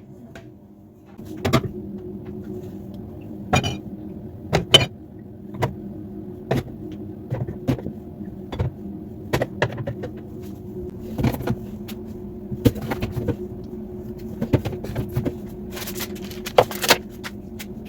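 Food packs and containers being put into a fridge: irregular clicks, knocks and rustles of plastic and shelves over a steady low hum.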